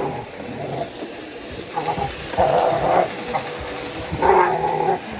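Dog growling and snarling in several harsh bursts, each about half a second long, the loudest near the end.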